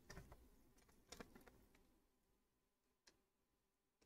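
Near silence, with a few faint ticks and rustles from gloved hands handling Kapton tape on a graphics card board: a cluster near the start, another about a second in, and a single tick about three seconds in.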